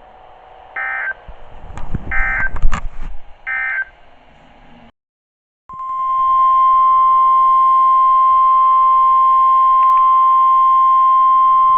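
Three short bursts of screechy digital data tones, the SAME end-of-message code from NOAA Weather Radio, with a few knocks between them. Then, after a brief silence, the loud, steady 1050 Hz Weather Radio warning alarm tone sounds without a break, heralding the next severe thunderstorm warning.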